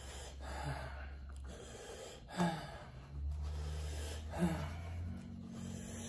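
A man breathing hard, blowing air out through pursed lips again and again, with short whimpering sounds between the breaths: trying to cool a mouth and throat burning from extremely hot chicken.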